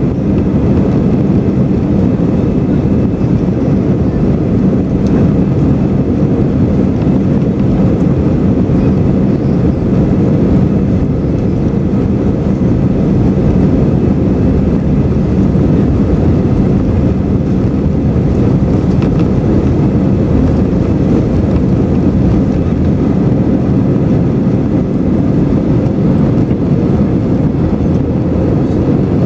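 Steady, loud cabin noise inside an Airbus A321-200 airliner: an even, low rumble of engines and airflow with a faint hum, unchanging throughout.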